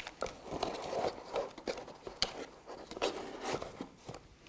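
Plastic parts bags rustling and crinkling as they are handled, with a few light knocks against a cardboard box.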